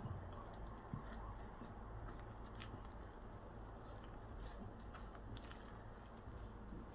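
Faint sticky squishing and small scattered clicks of soft bread dough being worked by hand, over a low steady hum.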